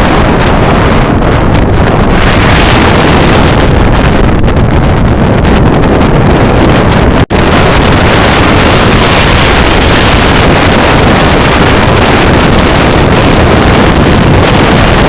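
Storm-force wind buffeting the microphone: a loud, continuous rushing rumble that cuts out for an instant about seven seconds in.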